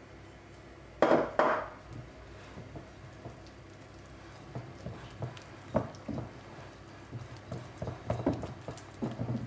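Two knocks of glass on glass about a second in as a small glass bowl is emptied of grated cheese into a glass mixing bowl. Then a silicone spatula stirs the thick cheese batter, with irregular soft scrapes and wet knocks against the bowl, busier near the end.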